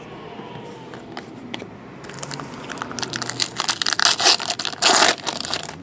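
Crinkling and rustling of the plastic wrapping on trading card packs as cards are handled. It starts as a few light clicks, becomes a dense crackle about two seconds in, and ends with a loud sharp crinkle near the end.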